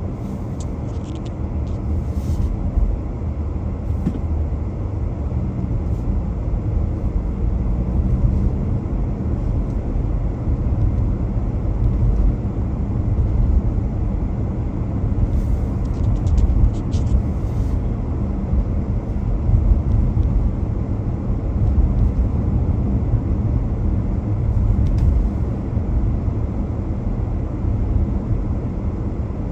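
Steady low rumble of a car driving along the road: tyre and engine noise.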